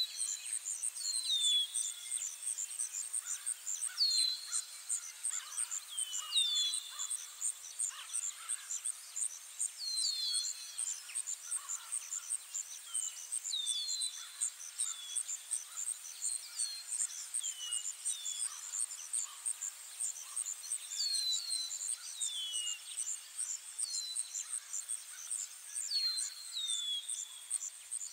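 Countryside ambience: short downward-sliding bird chirps every second or two over a steady, high, fast-pulsing insect trill.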